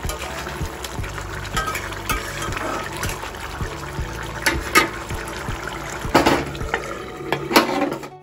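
Thick curry bubbling and being stirred with a spatula in a metal kadhai, with a few sharp knocks against the metal pan in the second half.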